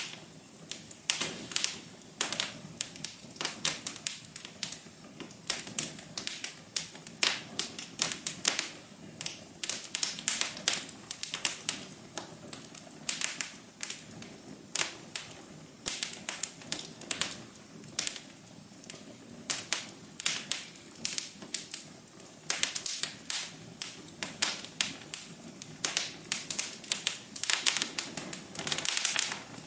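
Fireplace fire crackling: irregular sharp pops and snaps, several a second and some louder than others, over a soft steady hum.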